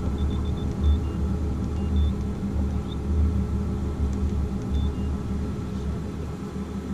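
Steady low rumble, with a few faint, short, high-pitched beeps in the first two seconds and again about five seconds in.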